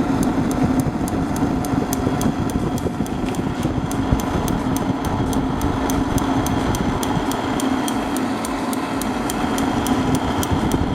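Forced-air propane heater running: the fan and burner make a steady rumble and hum, while the piezo igniter clicks rapidly and regularly the whole time.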